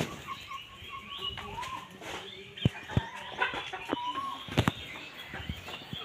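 Hens clucking and calling in short notes that bend up and down, with several sharp knocks in the second half.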